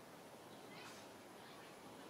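Near silence, with one faint, brief high-pitched call about a second in.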